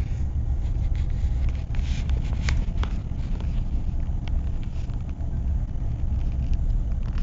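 Steady low rumble of tyres and engine heard from inside a moving car's cabin, with a few light clicks.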